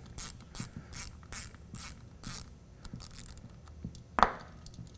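Hand tap driver clicking, about two clicks a second, as a tap is turned to cut threads into a drilled signal-tap hole in a throttle body; the clicking thins out after a couple of seconds, and a single knock comes about four seconds in.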